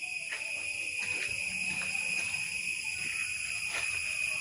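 Steady high-pitched drone of an insect chorus, with a few faint ticks scattered through it.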